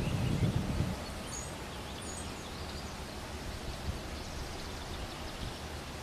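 Wind rumbling on the microphone for about the first second, then a steady breeze hiss with a few brief, faint high bird chirps.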